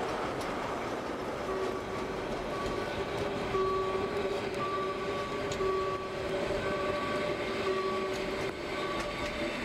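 Metre-gauge Harz narrow-gauge passenger coaches rolling past over curved street track, with steady wheel-on-rail running noise and an irregular, intermittent high squeal from the wheels on the curve.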